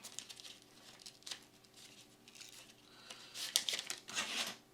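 A foil trading-card booster pack wrapper crinkling and being torn open: light rustles at first, then two louder tearing rustles near the end.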